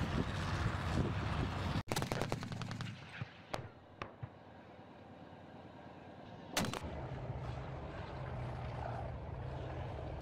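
Military range sounds: armoured vehicle engines rumbling, a rapid burst of automatic gunfire about two seconds in, then a few single sharp shots. A loud bang comes a little past halfway, followed by a steady low engine drone.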